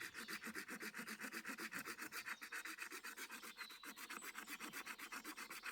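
Small pocket-knife saw blade, the Mikov's, sawing through a resinous pine branch with quick, even strokes.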